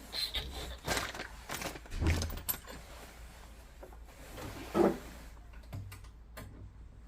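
Irregular light clicks and knocks of hard objects being handled, several in the first few seconds and one louder knock about five seconds in.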